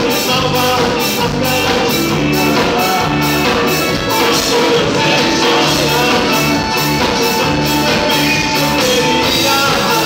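Live band playing a rock-style number on electric guitar, bass guitar, drum kit and keyboard, with a steady drum beat, amplified through a PA.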